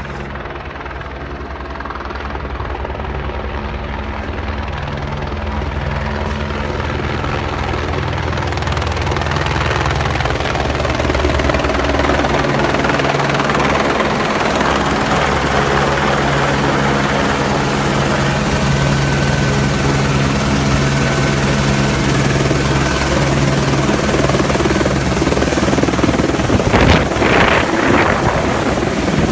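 Rescue helicopter's rotor and engine, growing louder over the first ten seconds or so as it approaches, then running steadily loud as it hovers close by. There are a few short loud swells near the end.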